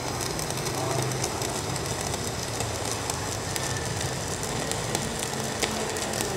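Two stick (MMA) welding arcs burning at once on 4 mm electrodes from Protech MK200 and Jacpro MMA 325 mini inverter welders: a steady crackling sizzle with a low buzz and scattered sharp pops of spatter.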